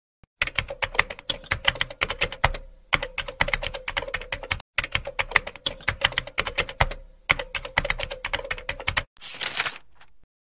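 Typing sound effect: a fast run of key clicks with two short pauses, ending in a brief hiss near the end.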